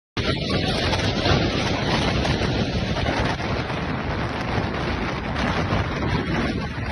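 Storm-force wind gusting hard and buffeting the microphone in a loud, steady rush.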